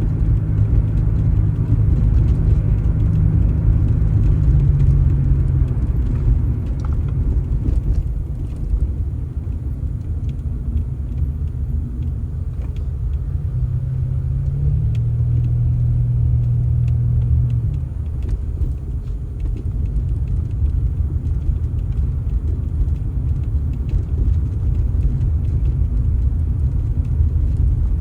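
A motor vehicle engine running with a steady low rumble; its note steps up midway and drops back a few seconds later.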